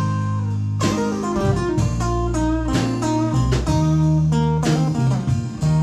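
Acoustic guitar playing an instrumental passage, a run of plucked and strummed notes over sustained low notes.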